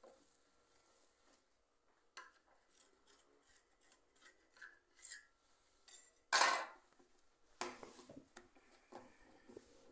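Hands rolling and shaping soft bread dough on a granite countertop: quiet, scattered rubbing and patting of dough and palms against the stone, with a louder rub about six and a half seconds in and another near eight seconds.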